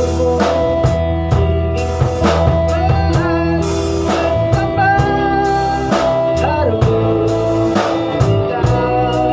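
A live band playing together: electric guitar, electric bass and drum kit, with a steady drum beat, a sustained bass line and bending lead notes.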